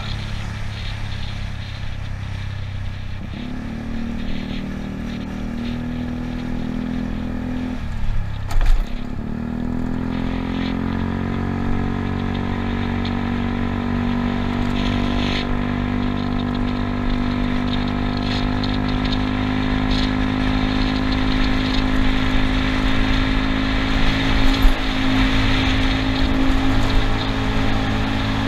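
Yamaha Cygnus scooter's single-cylinder engine running steadily under way, with tyre and wind noise. About eight seconds in, the engine note drops briefly with a short thump, then climbs back and holds steady as the scooter speeds up again.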